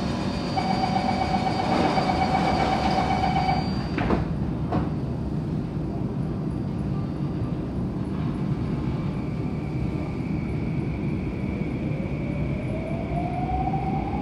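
Bombardier C951 metro train at a station: rapid door-closing warning beeps, then the sliding doors knock shut twice about four seconds in. Near the end the traction motors start a steadily rising whine as the train pulls away, over a steady rumble of the car.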